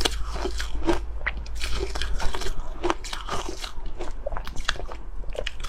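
Ice being bitten and chewed close to the microphone: a run of sharp, irregular crunches and cracks as the cubes break between the teeth.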